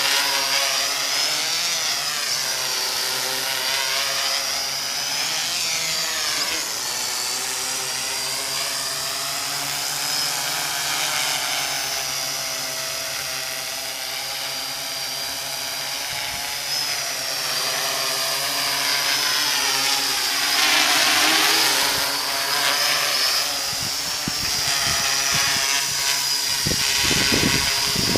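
MikroKopter quadcopter's four electric motors and propellers buzzing in flight, the pitch rising and falling again and again as it hovers and manoeuvres. A few low bumps come in near the end.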